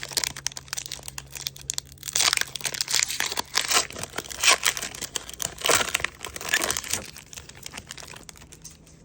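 Foil wrapper of a Pokémon booster pack crinkling and tearing as it is ripped open, in irregular bursts of crackle that die away near the end.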